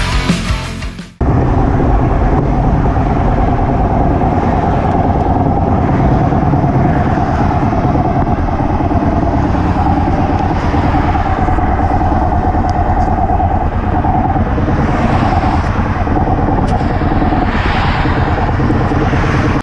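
Yamaha XT660X single-cylinder motorcycle engine running while riding, mixed with a steady wind rush on the microphone. Music plays briefly at the start and cuts off about a second in.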